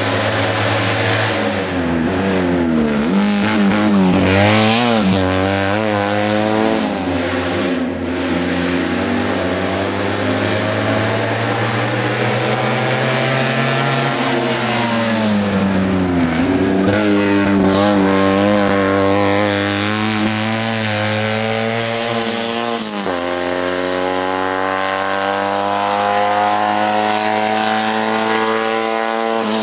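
Small Fiat 500-type hill-climb racing car's engine revving hard up a climb, its pitch rising through each gear and dropping at each change, with several quick blipped downshifts a few seconds in.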